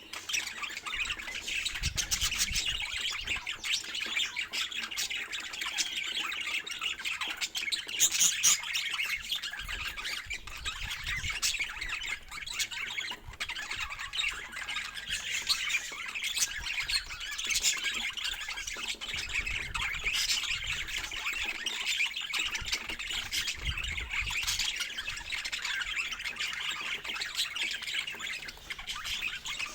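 Budgerigars chattering: a continuous stream of warbling chirps and squawks.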